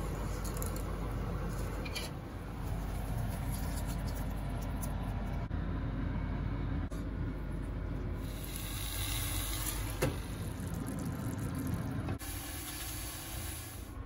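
Pot of water at a rolling boil with spaghetti in it: a steady bubbling hiss. A single sharp click about ten seconds in.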